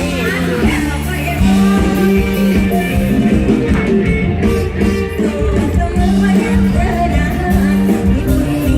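A live Isan (northeastern Thai) band plays a song with singing over a steady bass line.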